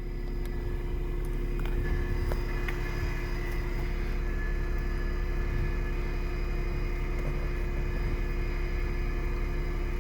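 Small electric tire inflator compressor from a Smart ForTwo's emergency tire repair kit running steadily as it pumps air into a flat tire, a constant hum over the low rumble of the car's idling engine.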